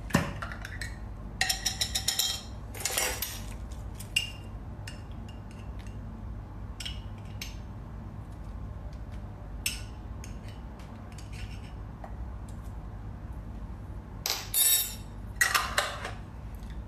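Lid being twisted off a jar of black olives, then a metal spoon clinking and scraping against the jar as olives are scooped out, in scattered clicks with clusters of clatter near the start and again near the end.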